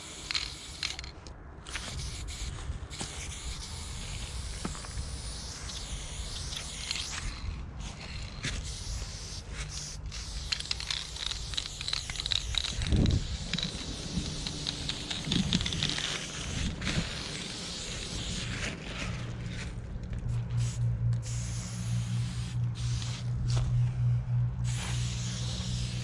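Aerosol spray paint can hissing in repeated passes with short pauses between strokes, as a black outline is sprayed. A low steady hum comes in during the second half.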